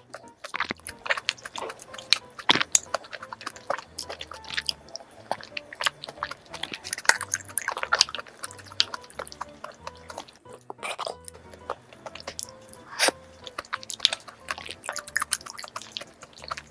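Close-miked chewing and wet mouth sounds from eating thick yogurt mixed with dried persimmon and fruit, with many small sharp clicks and smacks, over soft background music.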